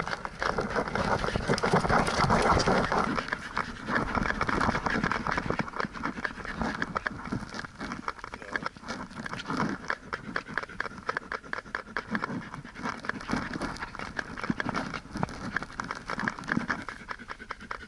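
Dog (Dachshund–Lab mix) panting in a quick, steady rhythm, heard very close from a camera worn on its back.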